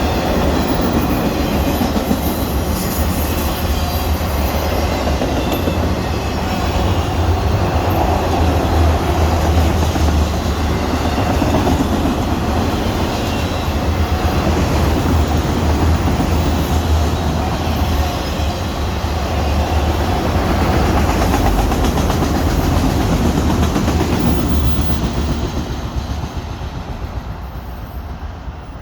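Freight train of TTX flat cars with auto racks rolling past at speed: a steady rumble and clickety-clack of steel wheels on the rails. The sound fades over the last few seconds.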